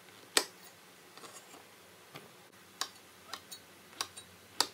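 Kitchen knife cutting king oyster mushroom into chunks on a wooden cutting board: about eight sharp knocks of the blade striking the board, unevenly spaced. The loudest come about half a second in and just before the end.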